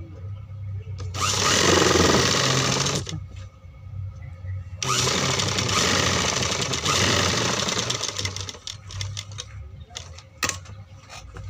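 Sewing machine stitching in two runs, the first about two seconds long and the second about three and a half seconds, with a short pause between them. Scattered light clicks follow near the end.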